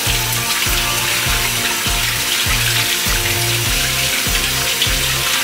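Water running from a tap as hands are washed under it, a steady rush, over background music with a steady beat.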